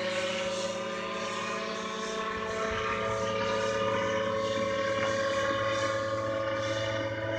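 Gyroplane's engine and propeller heard from the ground as a steady distant drone, swelling slightly through the middle.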